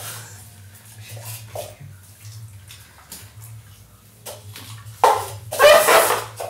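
Plastic or paper cups sliding and scraping across a tile floor as they are shuffled, loudest from about five seconds in, with faint small knocks before that. A steady low hum runs underneath.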